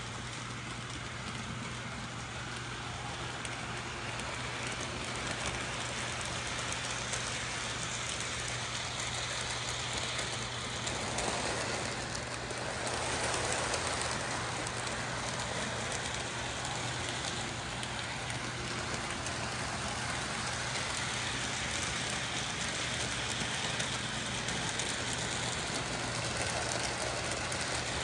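Three-rail model trains running around the track: a steady rushing rattle of wheels on the rails with a low hum underneath, louder between about 11 and 14 seconds in as the passenger train passes close by.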